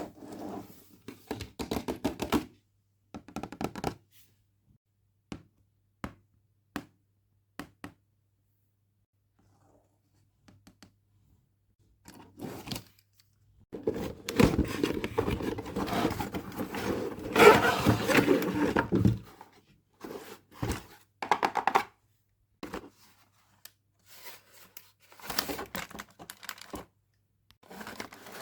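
Toy packaging being handled and opened: scattered taps and clicks, then a few seconds of crinkling and tearing, then more light taps and rustles.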